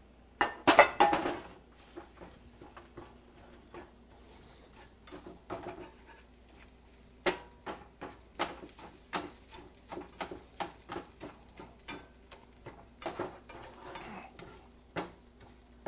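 A spatula scraping and tapping against a stainless steel frying pan as scrambled eggs are chopped into small pieces, over a faint sizzle of the eggs frying in oil. The loudest scrapes come about a second in; from about seven seconds on the taps come steadily, one or two a second.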